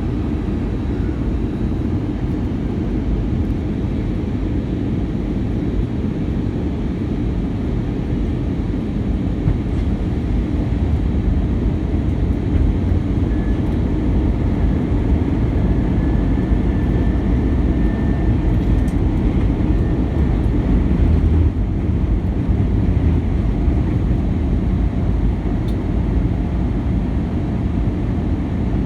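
Steady low rumble of engine and airflow noise heard inside the cabin of an Airbus A319 airliner in flight, slowly growing a little louder, with a faint thin whine in the middle.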